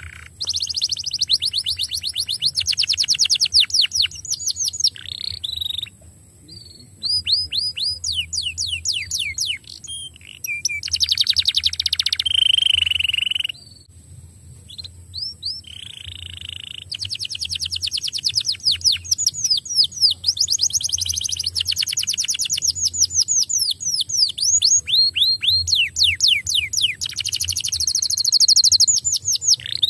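Domestic canary singing long, rapid trills of quickly repeated down-sweeping notes, phrase after phrase with short breaks between, over a faint steady low hum.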